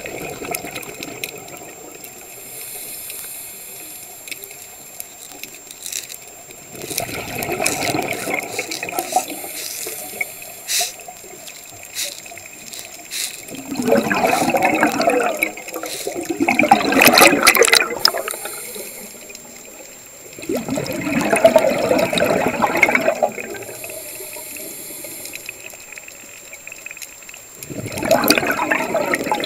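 Scuba diver's exhaled bubbles rushing from the regulator, heard underwater, coming in surges of a couple of seconds every several seconds with a quieter hiss between.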